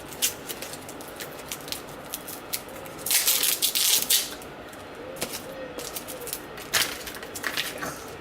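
Light clicks and taps of objects being handled, with a short scraping rustle about three seconds in and a few sharper knocks near the end.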